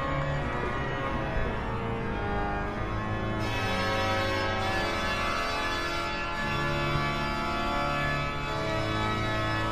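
Organ music: slow, held chords that change gradually.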